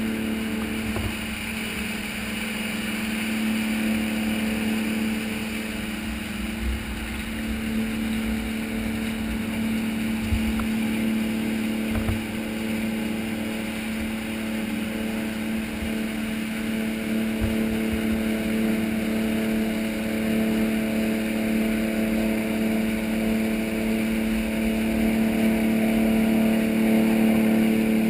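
A flybridge sportfishing boat's engines running steadily at speed: a constant low drone with the rush of the churning wake beneath it and a few low bumps, getting a little louder near the end.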